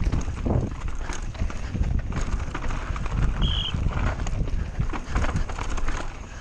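Downhill mountain bike clattering over a rocky dirt trail: tyres crunching over stones and the bike rattling with rapid irregular knocks, over a heavy low rumble. A brief high squeak comes about three and a half seconds in.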